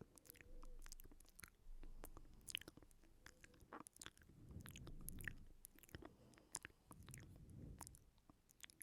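Close-miked ASMR mouth sounds: soft, irregular wet clicks and smacks of the lips and tongue.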